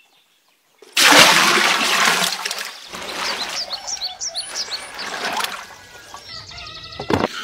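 Water splashing loudly about a second in, then sloshing and trickling as hands work and rub leaves in a wooden tub of water. Birds chirp in the background.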